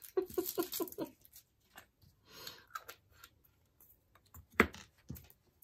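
Small clicks and a brief rattle of resin diamond-painting drills and small plastic storage pots being handled, with one sharp click about four and a half seconds in.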